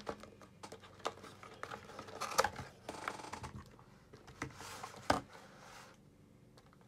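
Cardboard trading-card hobby box being opened by hand: scattered taps and scrapes of the lid and display flap, with brief rustles and sharper knocks about two and a half and five seconds in.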